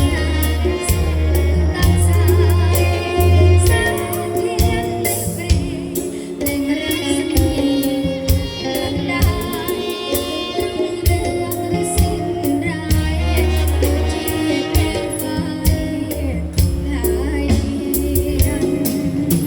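A song with singing over a steady beat and bright percussion.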